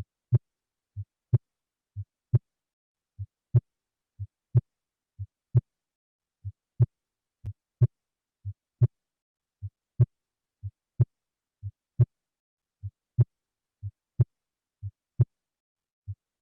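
Recorded heart sounds from an auscultation exercise: a steady lub-dub at about one beat a second, each beat a pair of short, dull thuds about a third of a second apart, the second louder than the first.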